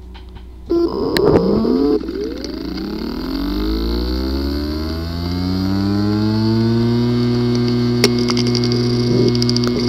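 Hard drive with a physically damaged disk assembly powering up: a loud, irregular burst of noise about a second in, then the spindle motor's whine rising in pitch for several seconds and settling into a steady hum. Sharp clicks sound near the end.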